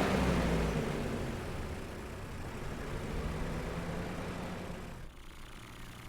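Cartoon vehicle engine running as it drives away, its pitch dropping near the start and the sound fading steadily.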